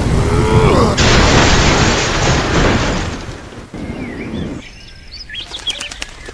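A loud rushing boom of noise that fades out about three seconds in, followed by quick bird-like chirps.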